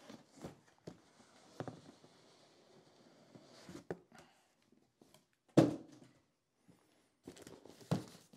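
Cardboard shipping boxes being handled: cardboard rubbing and scraping as the outer box is lifted off a heavy inner box holding a cast iron Dutch oven. Then come thumps as the box is set down on a wooden table, the loudest a little past halfway and another near the end.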